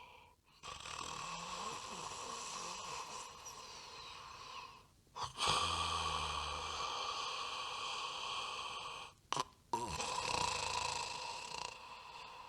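A sleeping cat snoring and breathing noisily, in a few short stretches joined by abrupt cuts, over a steady background hum.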